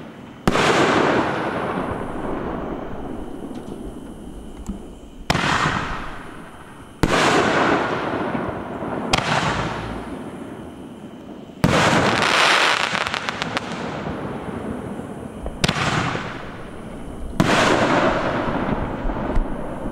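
Aerial fireworks bursting overhead: about seven sharp booms spread a few seconds apart, each trailing off in a long rolling echo. About twelve seconds in, one burst is followed by a short run of crackling.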